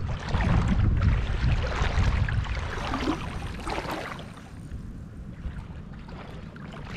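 Shallow water sloshing and lapping around someone wading, with a low wind rumble on the microphone, loudest in the first couple of seconds and easing off after about four seconds.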